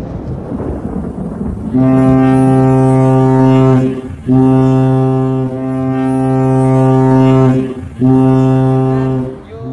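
Ship's horn sounding three long, steady blasts, the middle one the longest, over a rushing background noise.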